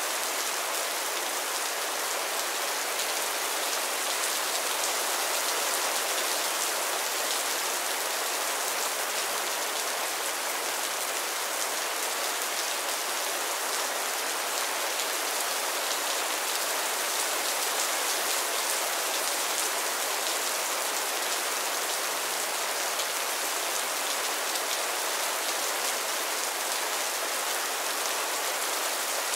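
Heavy rain falling steadily: an even hiss of countless drops with fine patter, unchanging throughout.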